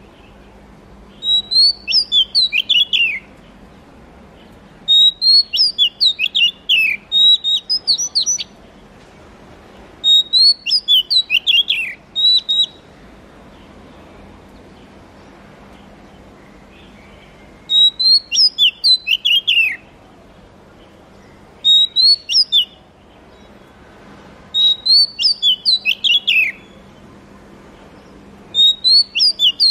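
Oriental magpie-robin singing. It gives loud phrases of varied whistled notes that slide up and down, each phrase about two seconds long, with pauses of a few seconds between them.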